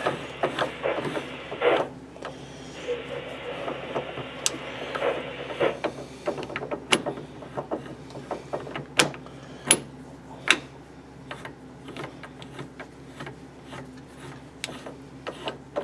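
Steel parts of a Logan lathe's 5C collet closer being turned and threaded on by hand, metal rubbing and scraping on metal. The scraping is dense for the first several seconds, then gives way to scattered sharp metallic clicks.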